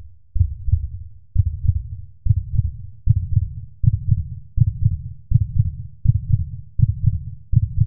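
Deep, heartbeat-like thumps in doubled beats, repeating steadily and gradually quickening from about one beat a second.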